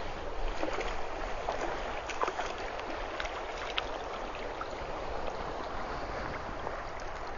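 River water running steadily, with small scattered splashes from a hooked trout being brought in at the surface.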